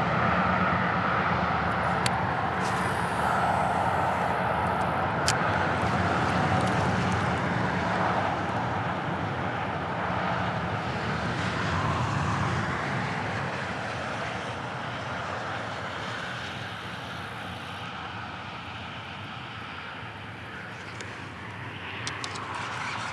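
Steady rush of interstate highway traffic. It is loudest in the first half and slowly fades, with two faint ticks in the first few seconds.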